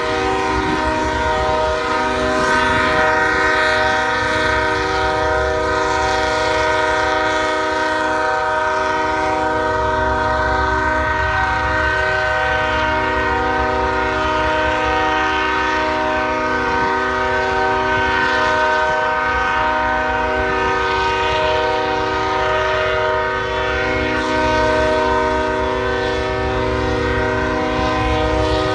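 Locomotive air horn held in one continuous blast, several tones sounding together as a steady chord, over the low rumble of the train, which grows louder about ten seconds in.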